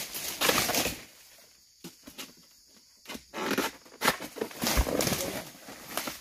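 Oil palm frond being hacked from the crown with a long-poled harvesting blade, its leaves rustling and tearing as it comes down, with a dull thump a little before the end.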